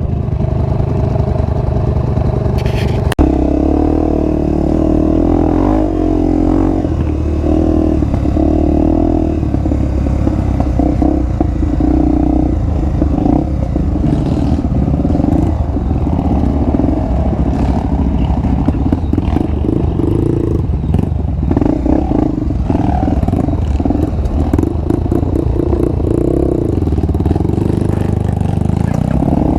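Honda XR250 Tornado's single-cylinder four-stroke engine running through a new aftermarket exhaust on a dirt trail, its note rising and falling with the throttle, with some clatter from the bike over the rough ground.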